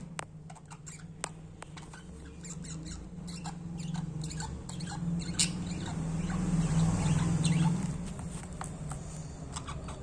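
Pet budgerigars chirping and chattering in a cage: many short, high squeaky chirps in quick succession. Under them a low hum grows louder in the middle and drops away about eight seconds in.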